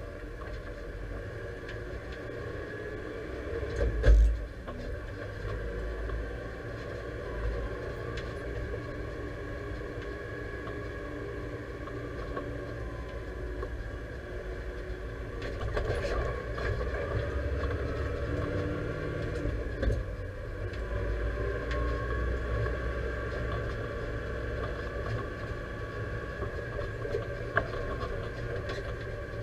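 Deutz-Fahr 5100G tractor's diesel engine running steadily, heard from inside the cab while it drives. There is a heavy thump about four seconds in and a few lighter knocks later.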